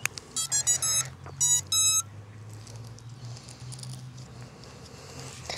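A series of electronic beeps from an FPV racing drone as it is powered up: a quick run of short tones, then two longer ones, over in about two seconds.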